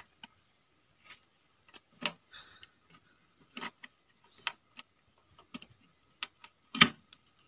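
Scattered metal clicks and clinks from hands fitting the oil cup and clamps of a Massey Ferguson 1035 DI tractor's oil-bath air cleaner, with the sharpest click near the end.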